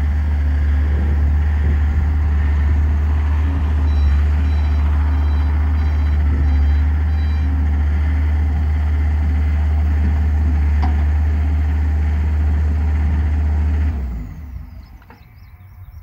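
John Deere 325 skid steer's diesel engine running steadily as the machine drives, with a faint repeated beeping for a few seconds in the middle. About two seconds before the end the engine shuts off and its sound dies away.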